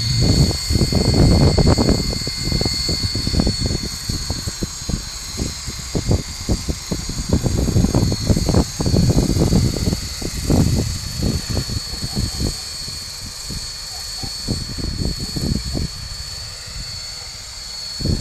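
Electric RC coaxial model helicopter in flight, its brushless motor and two contra-rotating rotor heads giving a steady high whine. Irregular low rumbling gusts, the loudest part, come and go over it, like wind buffeting the microphone.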